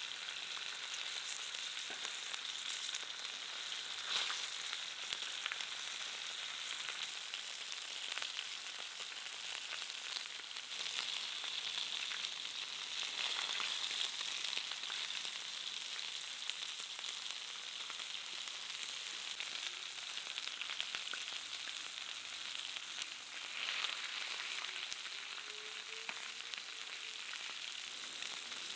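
Lamb chops and potato slices sizzling on a hot steel saj pan: a steady frying hiss flecked with small crackles, swelling louder a few times.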